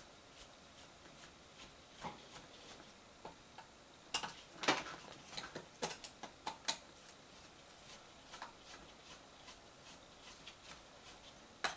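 Faint, scattered clicks and light metallic ticks of a small hand driver undoing screws on the underside of an RC truck chassis, busiest from about four to seven seconds in.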